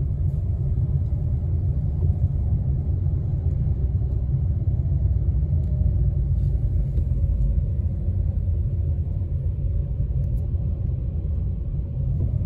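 Steady low rumble of a car driving slowly, engine and road noise heard from inside the cabin.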